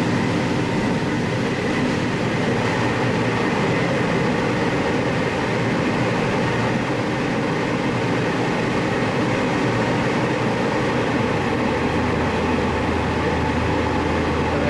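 Sanriku Railway diesel railcar running along the line, heard from inside the car: a steady rumble of wheels on rail mixed with engine noise. A deeper low hum sets in near the end.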